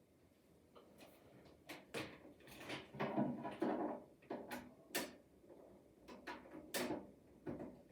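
Handling noise from setting up a computer and its cables: a string of sharp clicks and knocks, about a dozen, with rustling between them, busiest in the middle.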